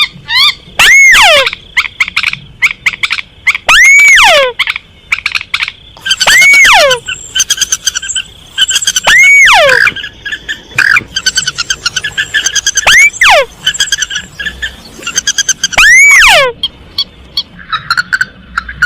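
Recorded calls of two rails played loud as a hunting lure: common moorhen and crake. Loud arching whistled calls, each rising and then sliding down, repeat about every three seconds, with rapid chattering notes in between.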